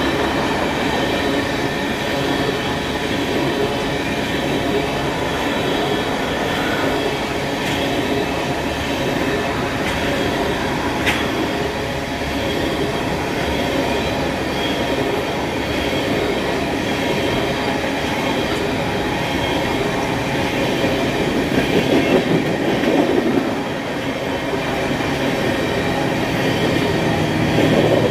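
Freight train of tank cars rolling past, with a steady rumble and rattle of steel wheels on rail and thin high squealing tones over it. A single sharp click comes about eleven seconds in.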